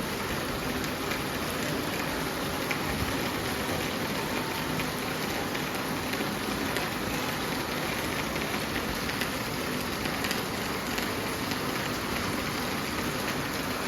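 Steady rain falling, an even hiss scattered with many small drop impacts.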